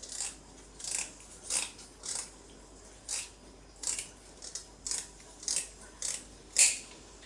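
Household scissors snipping through the fin bones along the edge of a raw sole, about eleven short crisp cuts at an uneven pace of roughly one every half second to second.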